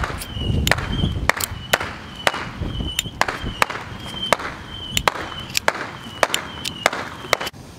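Handheld lighter clicked over and over, about three strikes a second, each a sharp click with a brief high ring, as it fails to stay lit in the strong wind; wind rumbles on the microphone underneath.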